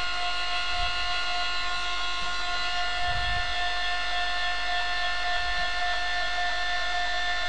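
Axis drive motors of a small CNC milling machine whining steadily at one constant pitch, several tones at once, as the machine makes a rapid traverse in X and Y to its tool-change position.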